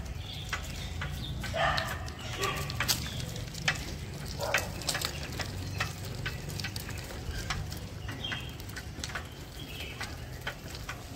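Outdoor street ambience: a steady low rumble with many scattered clicks and crackles, and a few short calls in the first half.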